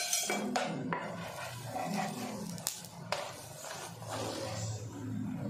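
Chapati cooking on a nonstick pan, with a light sizzle and several sharp taps and clicks of a wooden spatula pressing and flipping it, mostly in the first three seconds. A voice murmurs in the background.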